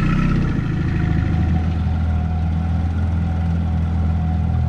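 25-horsepower tiller outboard motor running steadily at a low, even speed.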